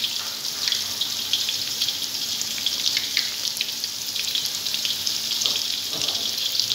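Potato kababs coated in egg and vermicelli deep-frying in hot oil in a steel pot: a steady sizzle full of small crackles.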